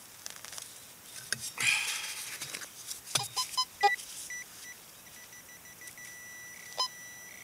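Soil and grass scraping as a plug is dug from hard ground, with a sharp click just after three seconds. Then a metal detector sounds over the target: short beeps at changing pitches, settling into a steady high tone broken by brief gaps.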